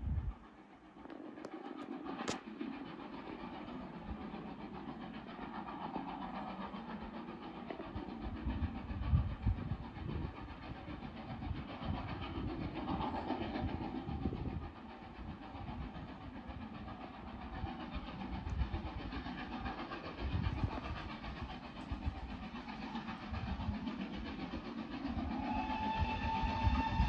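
Gusty wind rumbling on the microphone. About 25 seconds in, an unseen train sounds one long, steady, high whistle note that carries on.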